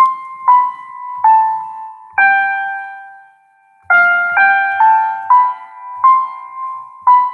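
Piano tone played one note at a time on a keyboard instrument: a simple melody that steps down C, B, A, G, holds the G, then climbs back F, G, A, B, C and dips to B, each note struck and left to fade.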